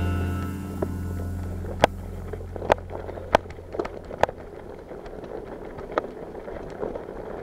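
Background music fading out over the first two seconds. Then a BMX bike being ridden: wind on the microphone and rolling noise, with scattered sharp clicks and knocks a second or so apart.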